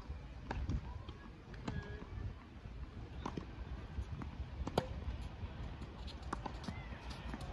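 Tennis ball being hit with rackets and bouncing on the court during a rally: a string of sharp, irregular pocks about a second or so apart, the loudest nearly five seconds in.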